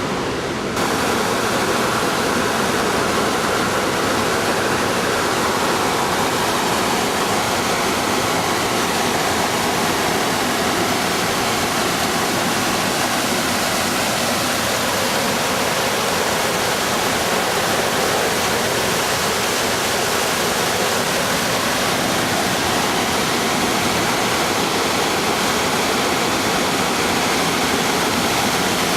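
Steady, loud rushing water.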